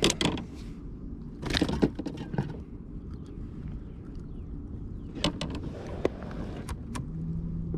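Scattered clicks and knocks of handling on a fishing kayak, with a short rush of noise about a second and a half in and a low steady hum starting near the end.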